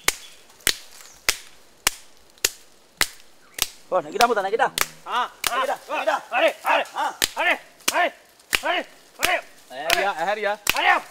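Open-handed slaps on a lying young elephant's hide, sharp and evenly spaced at a little under two a second, striking it to rouse it to its feet. About four seconds in, a quick run of rhythmic pitched calls joins the slapping.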